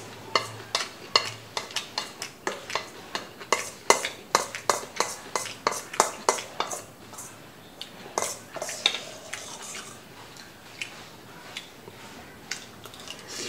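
Metal spoon clinking and scraping against a stainless steel bowl as bibimbap is stirred and mixed. Rapid clinks, about three or four a second, run for the first seven seconds or so, then thin out to a few scattered taps.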